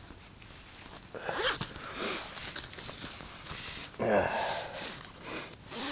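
Nylon tent fabric rustling in short, intermittent bouts as someone shifts about inside a small tent, with sniffs and breaths.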